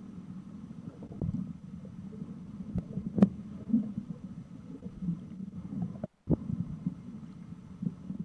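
Muffled underwater sound picked up through a camera's waterproof housing: a low, irregular rumble of moving water with scattered knocks and clicks, the sharpest about three seconds in. It cuts out briefly about six seconds in.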